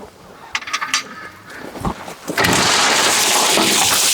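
A few scattered knocks, then about two seconds in a loud, steady rush and rattle of loose crushed stone pouring in bulk, as a load of gravel slides into or out of a steel dump trailer.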